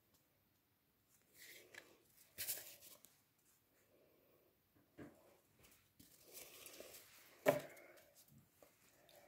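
Cardstock photo cards rustling and sliding against paper as one is drawn out of a scrapbook pocket and slid back in, with a few soft scrapes and one sharp tap about seven and a half seconds in.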